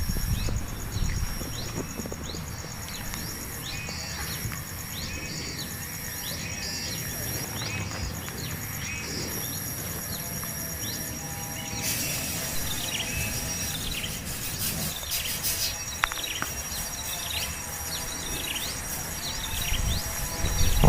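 Small birds chirping repeatedly, short high calls several a second, over a steady high-pitched insect drone. A hiss joins about twelve seconds in.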